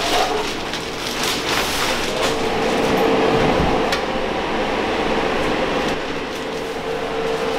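A steady mechanical whir with a constant hum, with a few short clatters and rustles of junk and plastic bags being handled.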